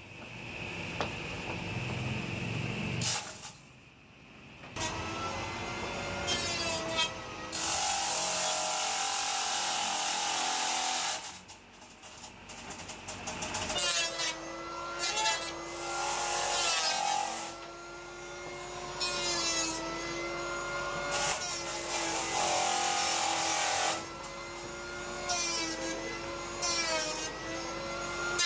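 Handheld electric planer running, its motor whine wavering in pitch as it is pushed along a wooden plank, with several loud, hissing stretches of cutting as the blades shave the wood.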